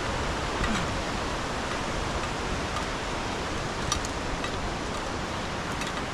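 Steady rush of the Cascade Falls waterfall on Little Stony Creek, with a few faint clicks, one about four seconds in.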